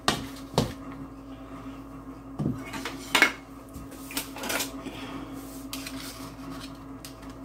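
A metal pastry blender scraping and knocking against a mixing bowl in irregular strokes as softened butter is cut into a crumble topping of flour, oats and brown sugar. The loudest knock comes a little after three seconds in, over a steady low hum.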